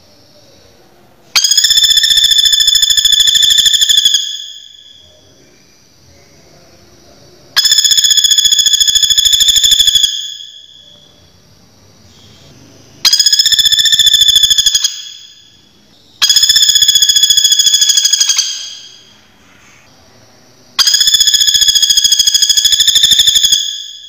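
Common flameback woodpecker calling: five fast, high-pitched rattling trills, each two to three seconds long, coming every few seconds and each fading out over about a second.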